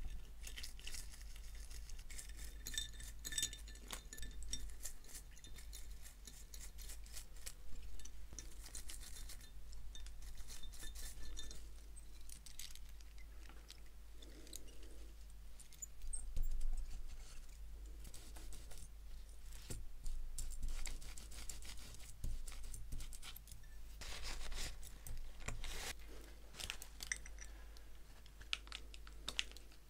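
Irregular light clicks, clinks and scratchy rustles of small metal watch parts being handled at a bench while a wristwatch is worked on, with a louder cluster of clicks about halfway through.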